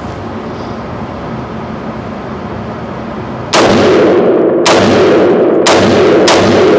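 Bear Creek Arsenal BC-15 AR-15 rifle firing .223 rounds in an indoor range, the shots ringing off the walls. The first shot comes about three and a half seconds in, and the shots follow roughly a second apart, coming faster near the end.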